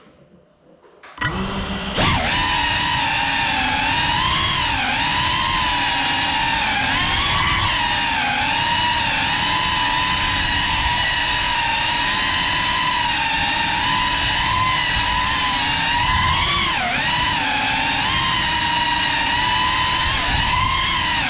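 GEPRC Cinelog 35 FPV cinewhoop's motors and ducted 3.5-inch propellers spinning up suddenly about a second in, then running as a steady, high, multi-toned whine. The pitch dips and rises with the throttle.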